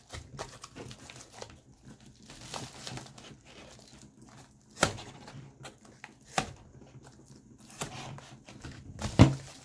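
Mailing package being cut open with a fillet knife and pulled apart: the packaging crinkles and tears, with a few sharp knocks, the loudest near the end.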